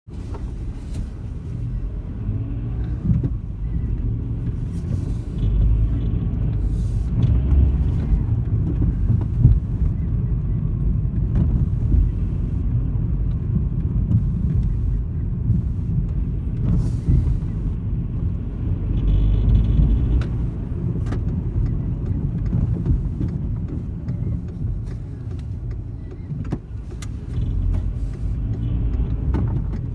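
Volkswagen Golf Mk5 being driven, with a steady low road and engine rumble and scattered sharp rattles and clicks over it. The rattle is unidentified; the heat shields and exhaust mounts have been checked and ruled out.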